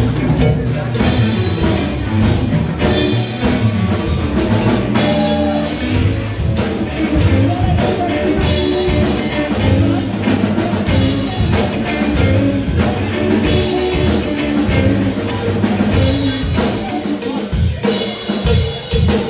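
A rock band playing live: a drum kit keeping a steady beat under electric guitars, with a singer's voice over the top.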